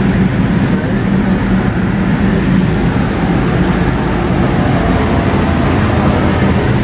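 Steady low drone of a large container ship's engine and machinery, with a constant hum over a broad rumble, carried through the hull into the galley.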